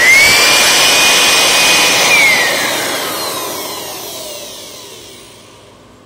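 Handheld electric air blower switched on, its motor whining up to speed at once and running steadily for about two seconds, then switched off and winding down with a falling whine that fades out. It is blowing air into a smoke detector's mesh to clear out dust.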